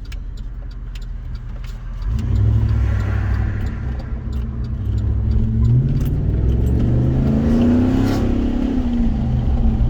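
2009 Chevrolet Avalanche's V8 engine pulling hard under acceleration, with a throttle controller on its most aggressive setting. About two seconds in the engine gets louder. It then climbs steadily in pitch and drops back near the end.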